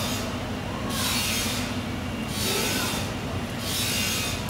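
Rhythmic scraping strokes, each lasting under a second and coming about every second and a half, from a tool being worked over a raw bluefin tuna loin, over a steady low hum.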